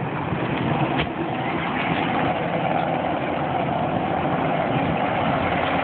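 Helicopter's engine and rotor running, a continuous loud noise, with a hum that sinks slightly in pitch over the last few seconds.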